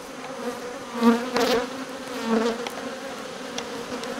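Honeybees buzzing at a crowded hive entrance: a steady hum, with single bees flying close past and swelling louder about a second in and again around two and a half seconds.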